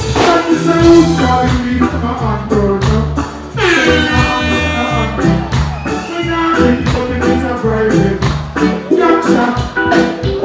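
Reggae music with singing over a steady beat. A held pitched note swoops in about three and a half seconds in.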